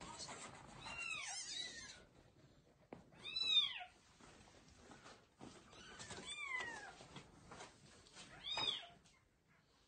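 Newborn kittens meowing, a series of high, arching cries with the loudest about three and a half seconds in and a falling one a little after six seconds, as the mother cat carries one kitten off in her mouth.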